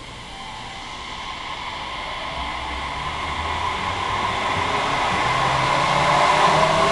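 JR Kyushu 817 series electric multiple unit pulling away from a station platform and gathering speed. Its traction motors whine in a rising pitch, and the sound grows steadily louder as the cars move past.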